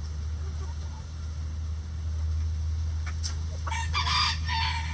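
Hens clucking quietly, then a rooster crows near the end, a rough call about a second long and the loudest sound here, over a steady low hum.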